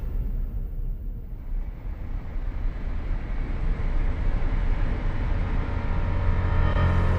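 Low rumbling drone in a dark soundtrack piece, swelling slowly, with faint held tones coming in near the end.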